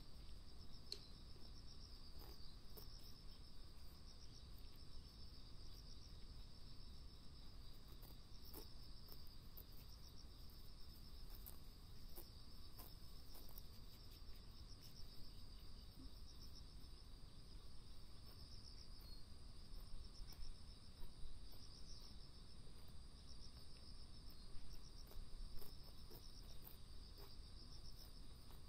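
Insects singing steadily, a high chirping that swells in pulses about once a second, over a faint low rumble.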